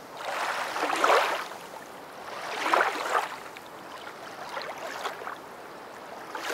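Water sound effect: surges of sloshing water, loudest about a second in and again about three seconds in, with a fainter one near five seconds.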